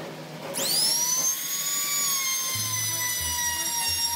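Handheld trim router switched on: its motor whine rises quickly to full speed about half a second in, then runs at a high, steady pitch that sags slightly.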